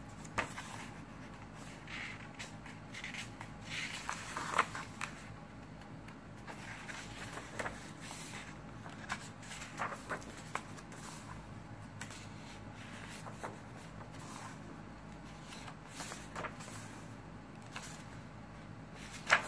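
Paper pages of a hardcover coloring journal being turned by hand, rustling and flapping in scattered soft strokes.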